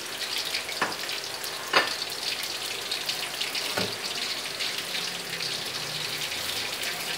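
Small battered mairo fish deep-frying in hot oil in an aluminium wok, a steady sizzling crackle as they fry toward golden brown. A few light knocks sound over it, the loudest about two seconds in.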